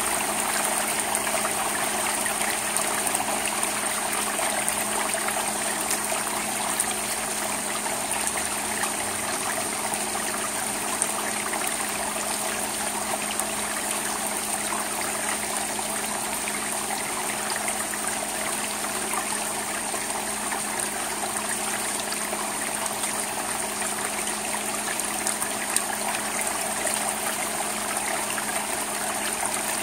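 Steady rain falling on an asphalt-shingle roof and gutter: a continuous hiss of water with many small drop ticks and a few louder drips.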